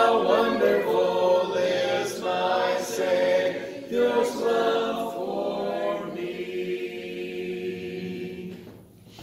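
Voices singing a hymn a cappella in harmony, without instruments. The last chord is held and fades away near the end.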